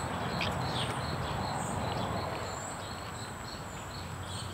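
Outdoor summer ambience: insects droning with a steady high-pitched whine and a rapid pulsing trill beneath it, a few faint chirps over them, and a low steady background rumble.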